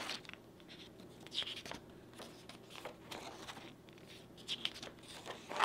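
Paper pages of a spiral-bound workbook being handled and turned: several soft, short rustles and flaps of paper.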